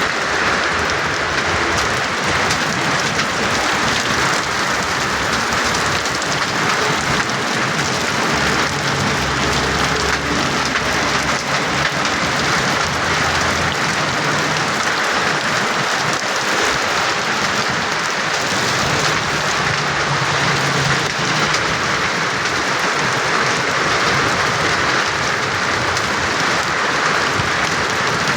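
Heavy rain pouring steadily in a nor'wester thunderstorm, an even hiss throughout, with a low rumble coming in twice.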